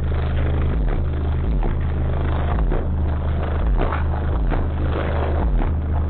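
Bass-heavy music played loud through a car's subwoofer system, a Kicx 1.1000 amplifier driving two Pro Power 381D subwoofers. A deep bass line of downward-gliding notes repeats about twice a second.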